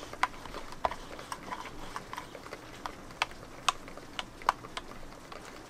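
A dozen or so light, sharp clicks and taps at irregular intervals over a faint steady hiss.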